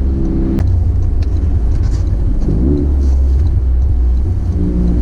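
Toyota GR Corolla's turbocharged three-cylinder engine and road rumble while driving: a steady low rumble, with a brief rise and fall in engine pitch a little past halfway and the engine starting to rev up near the end.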